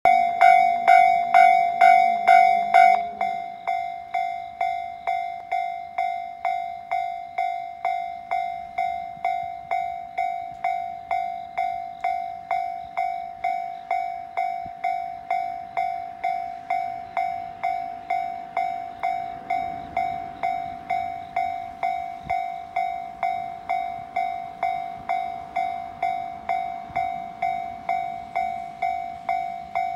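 Japanese railway level-crossing alarm ringing, a repeating bell-like ding of about two strikes a second that signals an approaching train. It is louder for the first three seconds, then rings on more quietly.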